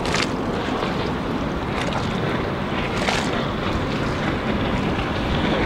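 Four Winns H200 bowrider's MerCruiser 4.3-litre V6 sterndrive running at speed on open water, a steady low drone heard from a distance under heavy wind noise on the microphone and the wash of water.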